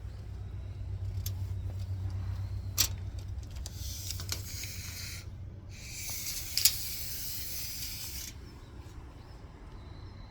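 C-frame hydraulic press running: a steady low hum from its motor-driven pump, with two stretches of high hiss and a couple of sharp clicks.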